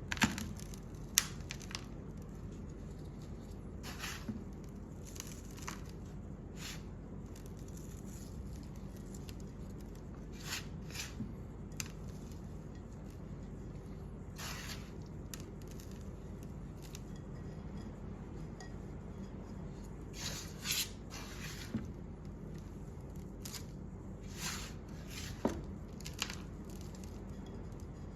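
Scattered short, wet squishes, tearing and clicks of food being handled and cut, over a steady low background noise.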